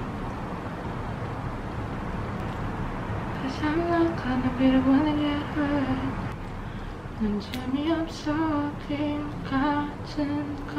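A woman singing a few lines of a pop song to herself, with English and then Korean words, starting about three and a half seconds in over a steady background noise.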